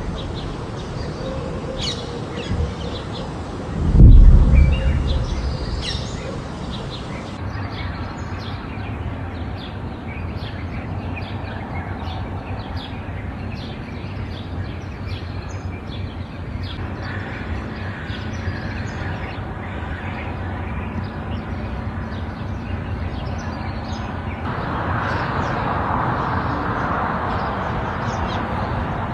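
Outdoor street ambience with birds chirping throughout, broken about four seconds in by a single loud, deep boom that rolls away over a couple of seconds.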